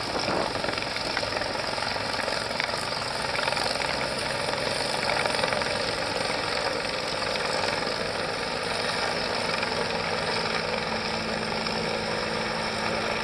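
Helicopter flying low overhead, its rotor and turbine running steadily.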